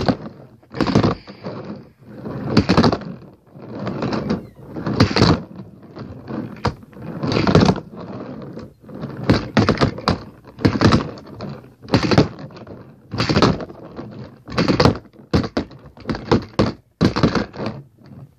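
A handboard's deck and wheels clacking and rolling on a hard surface, over and over, about once a second, as tricks are repeatedly attempted.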